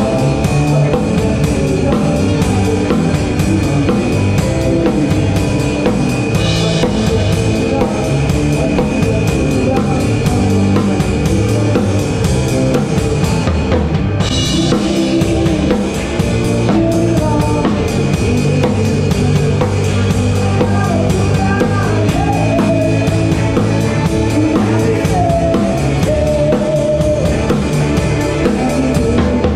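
Live band music heard from right beside the drum kit, with the drums up front: kick drum, snare and cymbals played in a steady rock groove under the rest of the band.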